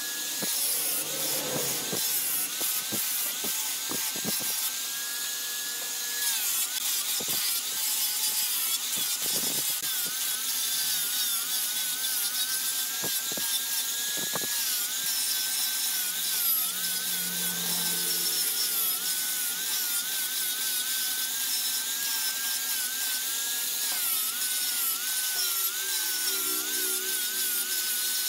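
Electric angle grinder with a sanding disc running against a wooden vase: a steady motor whine that wavers in pitch as the disc is pressed into the wood, over a continuous abrasive hiss.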